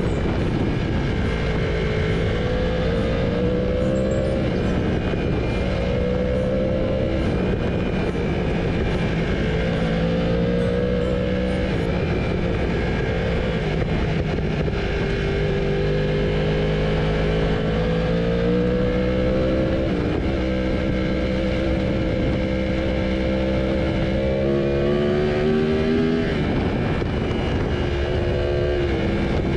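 Yamaha sport bike's engine heard on board under way, its pitch rising and falling with the throttle over a steady rush of wind noise. Near the end it climbs and then drops sharply at a shift from second into third gear.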